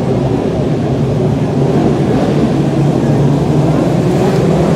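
A pack of winged micro sprint cars running together on an indoor dirt track, their engines a steady, loud drone inside the enclosed arena, growing a little louder near the end.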